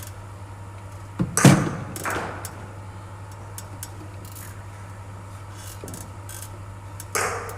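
Cricket bowling machine firing a ball with a sharp knock about one and a half seconds in, followed about half a second later by a second knock as the ball arrives at the batsman's end; the next ball is fired near the end. A low steady hum runs underneath.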